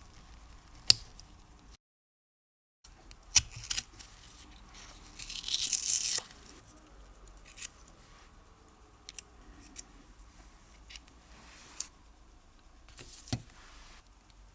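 Small clicks and taps of watchmaker's tools and parts being handled at a workbench, with a short scratchy rustle about five to six seconds in. There is a moment of dead silence near the start.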